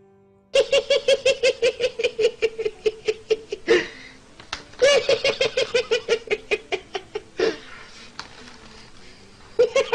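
A man laughing hard in rapid, high-pitched ha-ha-ha bursts, starting about half a second in. Two long runs are broken by gasping in-breaths, and a short loud burst comes near the end.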